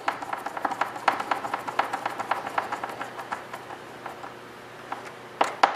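Hand screwdriver driving a small screw to fasten a micro switch, giving a quick series of small clicks and creaks, about five or six a second, that thin out after about three seconds, with two louder knocks near the end.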